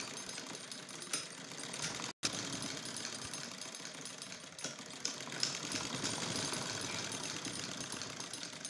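Old domestic sewing machine running steadily, stitching through cotton fabric with a rapid run of needle strokes. The sound cuts out for an instant about two seconds in.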